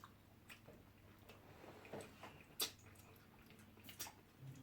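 Near silence with a few faint, sharp clicks and smacks of eating by hand; the loudest comes about two and a half seconds in.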